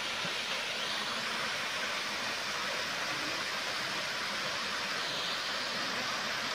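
Small waterfall pouring down a rock face into a pool: a steady rushing hiss of falling water.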